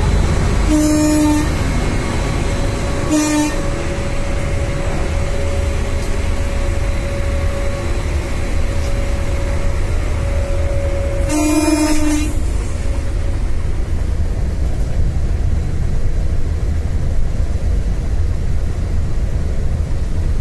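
Steady running rumble inside a locomotive cab at speed, with the train horn sounded three times: a short blast about a second in, a shorter one about three seconds in, and a longer blast about eleven seconds in.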